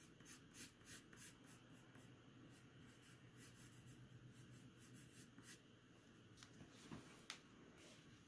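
Faint scratching of a graphite pencil shading on paper, first in short separate strokes, then as steadier light hatching. A single light tap comes about seven seconds in.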